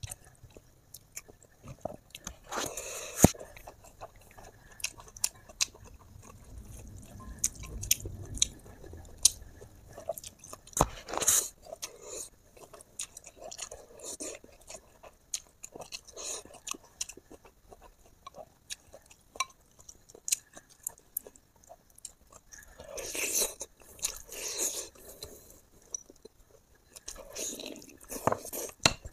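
A person chewing and biting pork close to the microphone: a run of wet mouth clicks and crunches, with a few louder bites in between.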